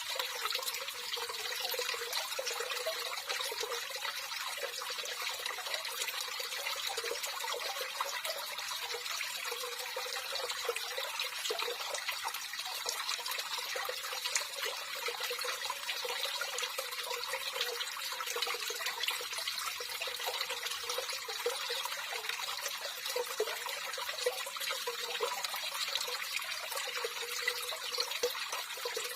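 Running water trickling and splashing steadily, an even rushing with many small splashes.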